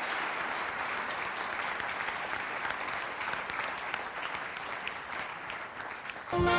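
A large audience applauding steadily, a dense patter of clapping. Just before the end, loud music cuts in.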